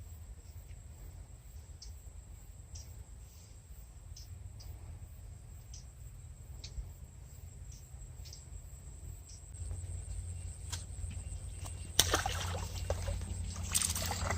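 A steady low rumble, like wind on the microphone, with faint scattered ticks; about twelve seconds in comes a sudden loud burst of rough noise lasting about a second, and another just before the end.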